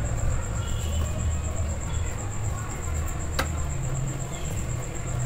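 Hands kneading a small batch of wheat-flour dough in a steel bowl on a stone counter, over a low rumble, with one sharp click about three and a half seconds in.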